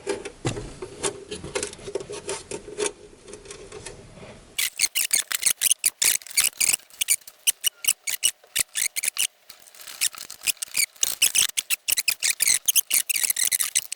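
Hands and tools working on a metal instrument case: rubbing and scraping with scattered clicks, turning into a dense run of sharp clicks and scrapes about four and a half seconds in.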